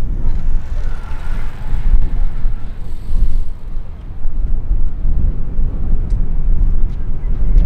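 Low rumble of a formation of jet aircraft flying high overhead, with a faint engine whine in the first few seconds.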